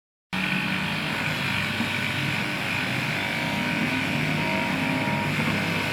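Electric fabric-cutting machine running steadily, its motor giving a constant whine with a hiss on top, starting abruptly just after the start.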